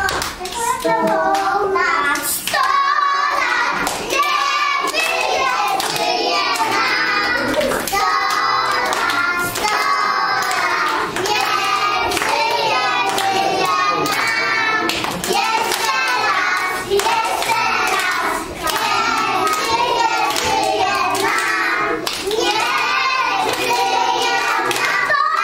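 A group of preschool children singing a song together, with hand claps along the song.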